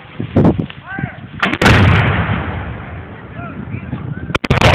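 Black-powder blank fire: a couple of sharp shots, then a heavy cannon blast about a second and a half in that rumbles away over about a second, and another quick pair of shots near the end.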